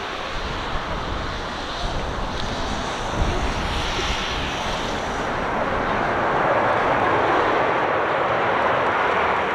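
Boeing 737-800 airliner's CFM56 turbofan engines on final approach with gear down, a rushing jet noise that grows louder over the last few seconds as the plane comes closer.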